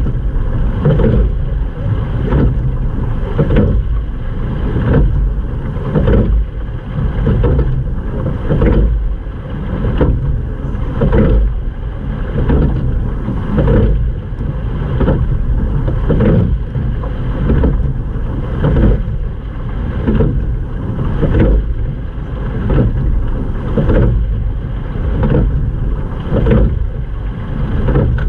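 Water rushing along the hull of a sculling boat under oars, with a regular knock and surge a little more than once a second from the rowing stroke, over a low wind rumble on the microphone.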